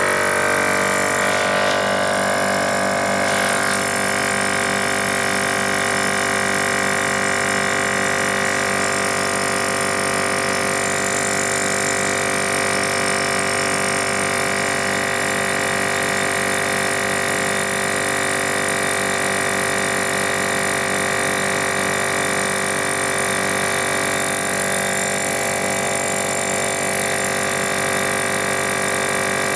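EPAuto 12V portable air compressor (tire inflator) running steadily, pumping air into a car tire.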